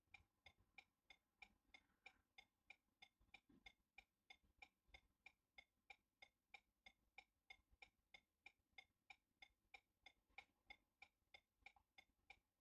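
Faint, steady ticking, about three ticks a second.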